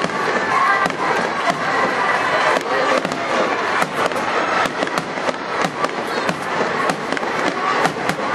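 Aerial fireworks bursting and crackling, many sharp bangs in quick, irregular succession.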